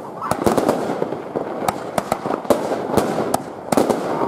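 Fireworks going off: irregular sharp bangs, several a second, over a continuous dense hiss.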